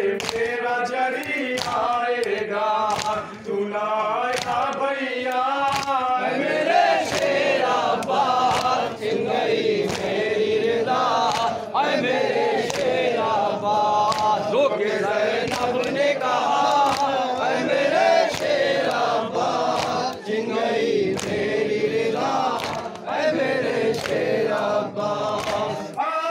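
A group of men chanting a noha, a Shia mourning lament, in unison, with sharp slaps from chest-beating recurring over the chant.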